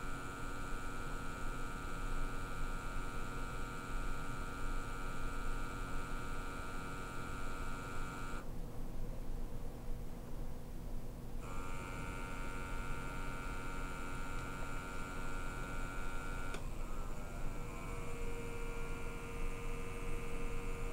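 Steady electric hum and whine of a small gas-sampling pump running as calibration gas flows through the detector. The higher part of the whine drops out for about three seconds midway, then returns with a different pitch. A faint click near the end brings in a new lower steady tone as the gas is switched for the methane calibration.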